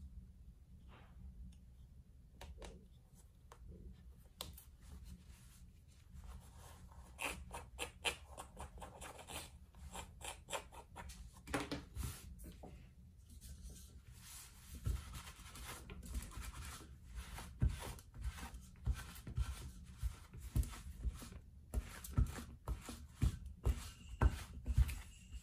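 Close handling of denim jeans: fabric rubbing and brushing with scattered small snips and clicks. In the last part come repeated sharp strokes, about one or two a second, as a sticky lint roller is rolled back and forth over the denim.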